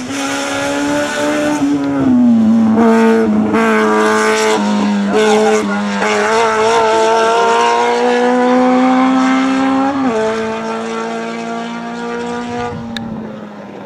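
Hill-climb race car's engine at full throttle, revving up through the gears with a sudden drop in pitch at an upshift about two seconds in and again about ten seconds in. It gets louder as the car comes by, then fades as it pulls away near the end.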